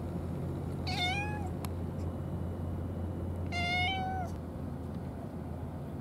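A cat meows twice, about two and a half seconds apart, the second call a little longer than the first. A steady low hum runs underneath.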